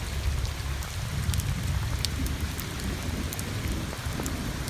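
Heavy rain falling onto a flooded concrete driveway and standing water: a steady hiss with many small drop splats, over a low rumble.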